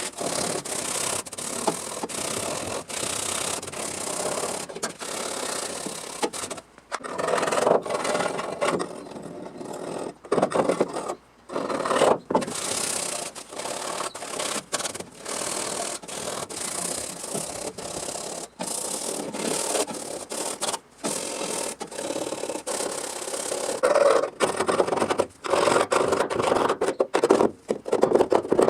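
A tool rubbing and scraping against rusty car-body sheet metal, continuous apart from several brief stops, and louder over the last few seconds.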